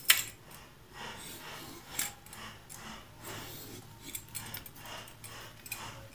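Steel vegetable peeler scraping the skin off a papaya in repeated short strokes, about one a second, with a sharp click right at the start.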